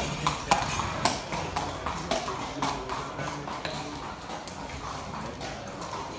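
A thoroughbred racehorse's hooves clip-clopping at a walk on a paved stable yard, an uneven run of sharp strikes, loudest in the first second or so.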